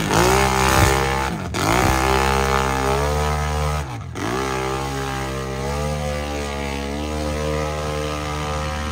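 Engine of a big-tire mud-bog vehicle running hard at high revs, the revs dropping sharply and climbing back twice, then holding a steady high note.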